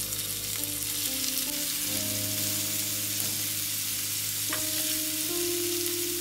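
Marinated chicken pieces shallow-frying in hot oil in a nonstick pan: a steady sizzle. Soft background music of held notes runs underneath.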